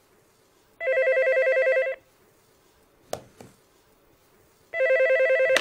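Corded landline desk telephone ringing twice, a fast-warbling electronic ring about a second long each time. There is a short click between the rings, and the second ring is cut off by a click.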